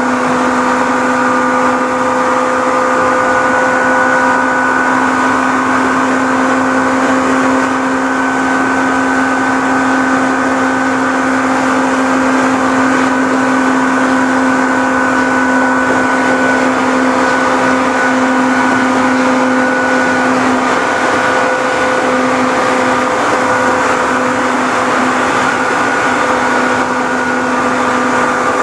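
Seibu New 101 series electric train running at a steady speed, heard from inside its leading motor car. Its loud traction motors give a steady whine in several pitches over the rushing noise of wheels on rail.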